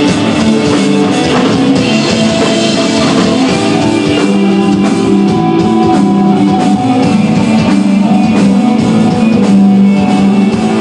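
Live desert rock band playing loudly: electric guitar and bass holding sustained notes over a drum kit with steady cymbal and drum hits.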